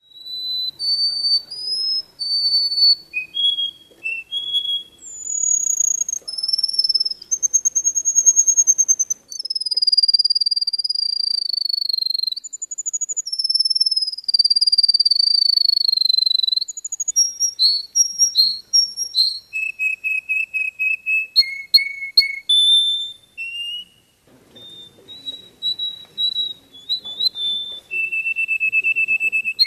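Small yellow songbird singing a long, varied song: high whistled trills, long sliding notes and quick chopped phrases, with brief pauses between phrases.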